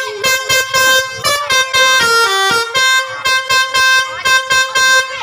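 A bus's Basuri telolet horn, a multi-tone musical air horn, playing a tune in short repeated blasts, about three a second, with the notes changing pitch partway through.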